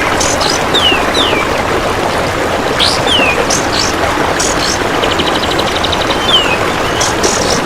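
Kapas tembak calls: short falling whistled notes repeated every second or so, with brief high chirps. A rapid ticking trill comes about five seconds in. Under it all runs a loud, steady hiss like running water.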